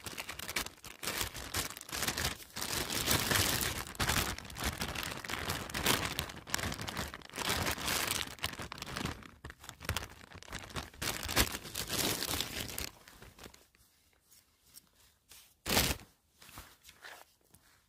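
Crackling, crinkling rustle of close handling, dense and loud for about thirteen seconds, then much quieter with one short loud rustle near the end.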